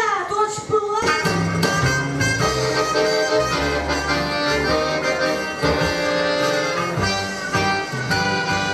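Bayan (Russian button accordion) playing a tune, starting about a second in, with held chords over a pulsing bass.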